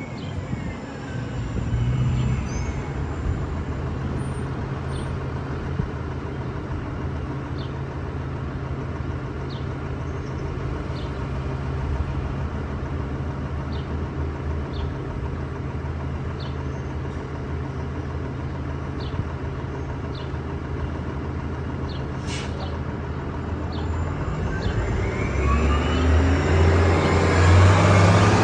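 Orion VII Next Generation hybrid-electric city bus with a lithium-ion battery drive, standing with its diesel engine running steadily. There is a short hiss about 22 seconds in. From about 24 seconds the bus pulls away, with a rising electric drive whine and the engine getting louder.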